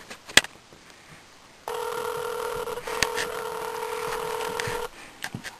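Ringback tone from a flip phone held on speaker: a steady electronic ring tone starting about a second and a half in and lasting about three seconds. It signals that the dialled call is ringing and not yet answered.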